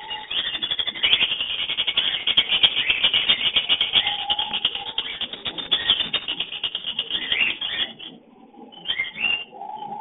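Lovebirds chattering in their mating call: a dense, rapid run of shrill, quick chirps that goes on for about eight seconds, then stops. A few separate calls follow near the end.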